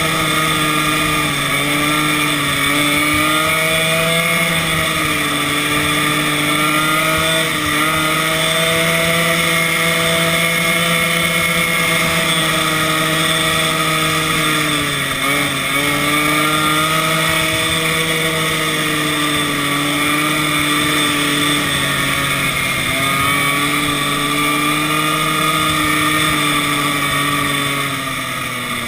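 Snowmobile engine running under throttle, its pitch rising and dipping with the turns, with one sharp dip about halfway through. Near the end the engine note falls as it slows down.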